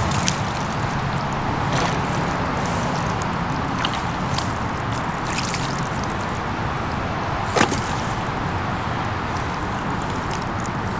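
Wet pond-edge mud squelching and sloshing as a person kneels and shifts in it, with a few short wet smacks, the sharpest about two-thirds of the way through, over a steady rushing background noise.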